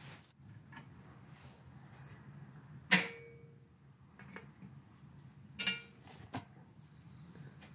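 Metal clicks and clinks as exhaust springs are stretched with a spring-puller tool and hooked onto the tabs of a motorcycle exhaust header collector. The loudest comes about three seconds in and rings briefly, and another ringing clink follows near six seconds.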